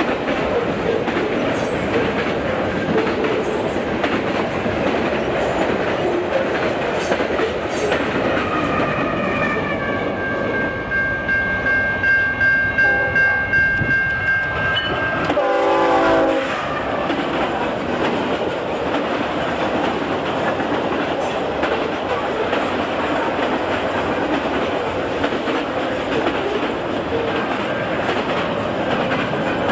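Train passing with steady wheel-and-rail noise throughout, and a multi-note locomotive air horn sounding one long chord lasting about seven seconds near the middle.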